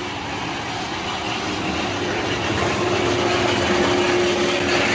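A machine's motor running with a steady hum, growing louder over the first few seconds and falling off near the end.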